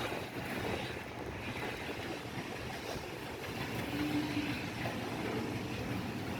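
Steady low engine rumble mixed with wind noise, with a brief hum about four seconds in.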